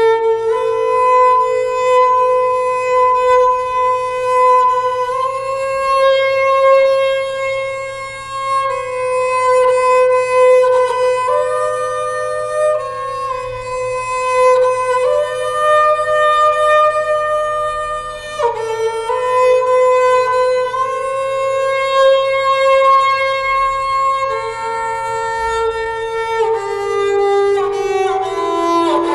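Slow, calm instrumental background music: a melody of long held notes that changes pitch every second or few.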